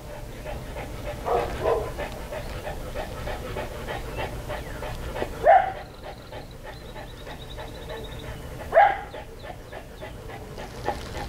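American Bulldog panting quickly through a basket muzzle, about four breaths a second, broken by three short barks, the loudest two about halfway through and about three quarters of the way in.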